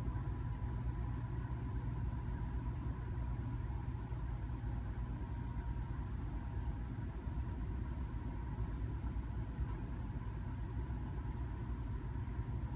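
Car engine running, heard from inside the cabin as a steady low rumble, with a faint steady tone above it.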